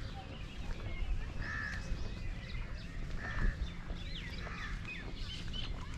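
A crow cawing three times, a second or two apart, with other small birds chirping and a low steady rumble underneath.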